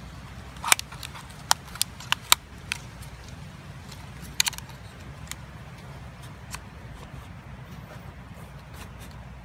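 Sharp plastic clicks and taps from an SJRC F11 drone controller as its fold-out phone holder is snapped shut and the controller is set into a foam case insert: a quick run of about five clicks in the first two and a half seconds, a double click about four and a half seconds in, then a few faint taps. A steady low rumble lies underneath.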